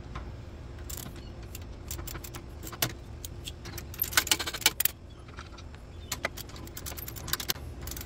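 Sharp metallic clicks and clinks of hand tools and metal parts at a Can-Am X3's rear brake caliper, with a quick run of clicks about four seconds in.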